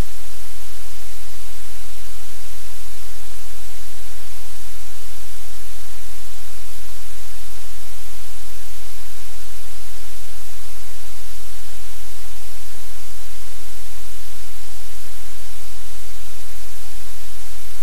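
Loud, steady static-like hiss with a low hum beneath it, unchanging throughout.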